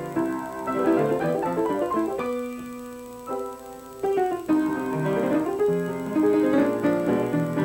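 Piano being played: a flowing passage of notes and chords. About two seconds in, a chord is held and left to die away, then the playing resumes.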